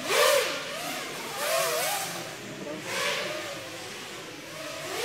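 Racing quadcopter drones flying the course, their motors and propellers making a whine that rises and falls in pitch with the throttle. It swells three times as drones pass, near the start, about a second and a half in, and about three seconds in.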